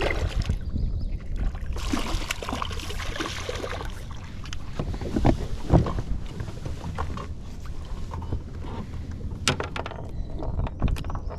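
A small largemouth bass being landed and handled in a boat: water splashing and sharp knocks against the boat over a steady low rumble.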